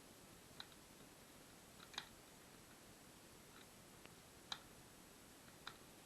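Near silence with a steady faint hiss and a few faint, sharp clicks or taps at irregular intervals, the loudest about two seconds and four and a half seconds in.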